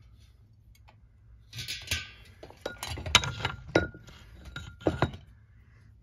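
Glass light shades on a ceiling fan's light kit clinking and knocking together as the fan is handled: a series of sharp clinks, several leaving a brief glassy ring, the loudest about three seconds in.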